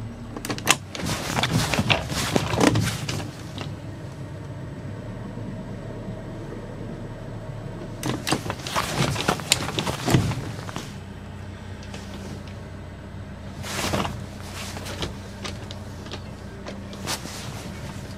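Motorboat engine running steadily at slow manoeuvring speed, with several short bursts of louder rushing noise every few seconds.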